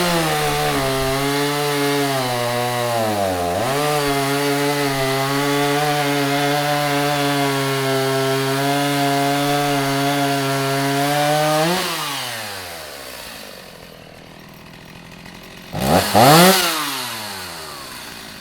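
Stihl MS 290 two-stroke chainsaw, just repaired, running at full throttle: its pitch sags briefly and recovers about three and a half seconds in, then drops back to idle about twelve seconds in. Near the end it is blipped once, a quick rise and fall in pitch.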